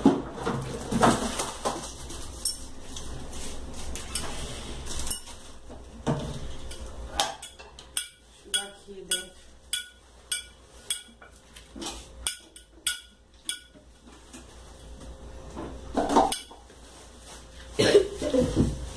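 Dishes and glassware clinking and clattering as they are handled and put away. In the middle comes a run of sharp, ringing clinks about two a second.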